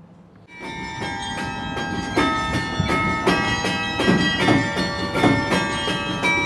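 Bells of a tower carillon playing a tune, many notes struck in quick succession and ringing on, starting suddenly about half a second in.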